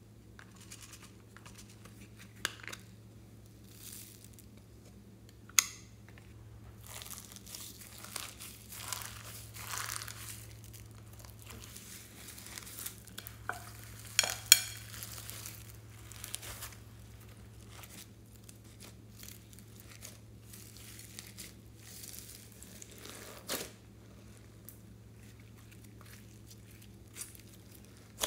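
Hands kneading and folding slime mixed with foam beads, sequins and glitter in a glass bowl: irregular sticky crackling and squelching, with a few sharp pops, the loudest about five and a half seconds in and again about fourteen seconds in.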